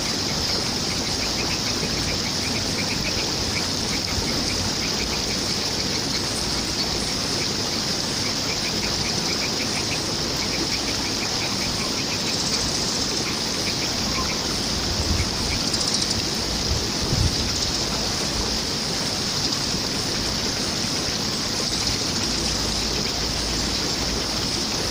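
Steady flowing water with an even high hiss, over which a bird calls in several quick runs of short repeated notes. A couple of brief low thumps come about two-thirds of the way through.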